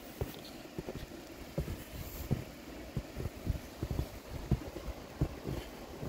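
Footsteps in deep fresh snow: dull, muffled thuds about two a second, uneven in pace, over a steady faint hiss.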